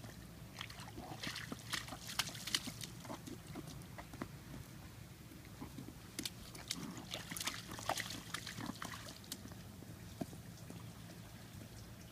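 Toddler's rubber rain boots splashing and stepping through a shallow puddle on wet pavement, in two spells of quick, light splashes a few seconds apart.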